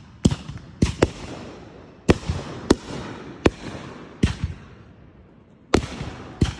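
Fireworks bursting: about nine sharp bangs at uneven gaps, some in quick pairs, each followed by a fading hiss.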